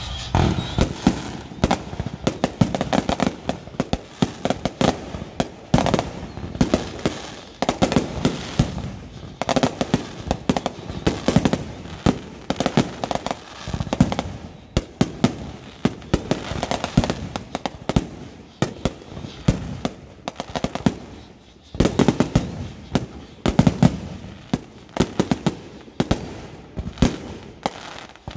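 Firecrackers and fireworks going off in a rapid, irregular string of sharp bangs and pops, with a brief lull about three-quarters of the way through.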